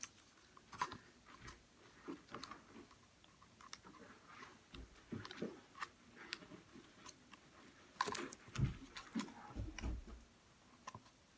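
Faint crinkling and small clicks of paper sticky-note strips being handled and pressed onto a cardboard toilet-paper tube. There is a louder run of rustling with a couple of low bumps about eight to ten seconds in.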